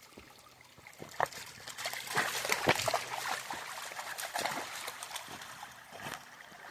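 Irregular splashing in a shallow creek, thickest and loudest about two to three seconds in, over a faint trickle of running water.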